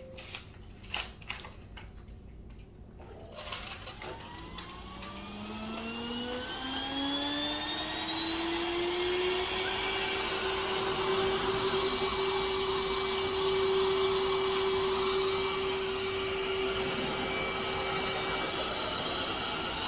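Roomba robot vacuum starting up: a few clicks, then its motors spin up with a rising whine that levels off about ten seconds in, and it runs on steadily with a high whine over a vacuum hiss.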